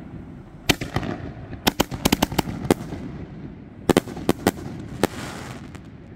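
Aerial fireworks bursting overhead: a dozen or so sharp bangs in quick clusters, the last of them about five seconds in.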